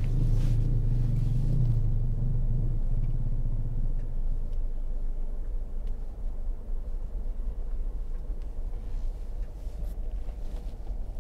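Motor vehicle running, a low engine drone that is strongest for the first few seconds and eases off after about three seconds, leaving a steady low rumble.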